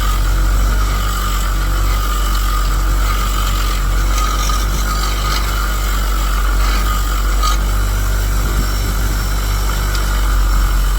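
Bench grinder's wire wheel running steadily with a constant motor hum and whine, as a shell fuze is pressed against it: wire bristles scratching over the metal to strip dirt and corrosion, in uneven scrapes through the middle.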